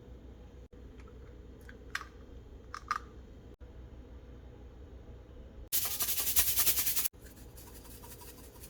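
Food-preparation handling noises over a low steady hum: two small clicks or scrapes, then, more than halfway through, about a second and a half of loud, rapid scratching that stops abruptly.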